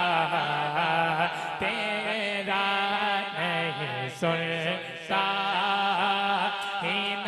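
A man singing a naat, an Urdu devotional poem, in long, wavering held notes with no instruments, over a steady low drone.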